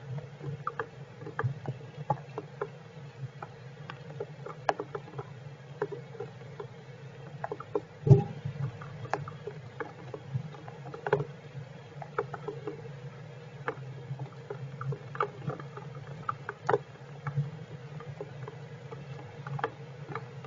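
Heavy rain, with drops tapping irregularly on the shelter over a steady low hum, and a single louder thump about eight seconds in.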